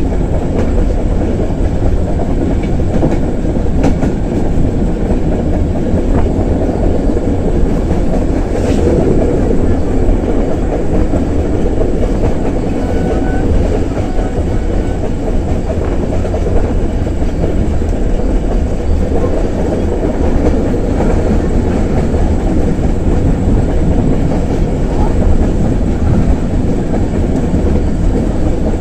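Pakistan Railways passenger train running along the track at speed, heard from beside the moving coaches: a steady, loud rumble of wheels on rails.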